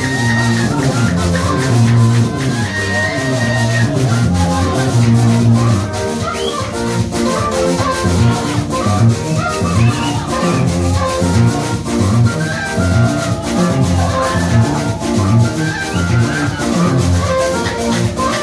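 Gospel band music with a steady beat: bass notes moving under drums and a shaker, with guitar lines above.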